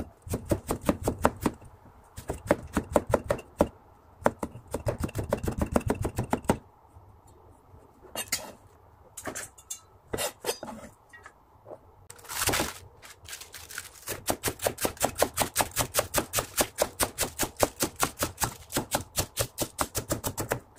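Cleaver-style kitchen knife chopping quickly on a plastic cutting board: rapid, even strokes, several a second, cutting carrots into thin strips. After a few seconds of scattered strokes and one brief louder noise in the middle, it runs on in a long steady stretch, shredding cabbage.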